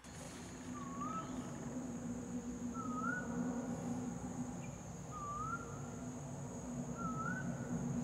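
Pied butcherbird giving a short whistled note that dips then rises, repeated four times about two seconds apart. A steady, high insect trill runs beneath it.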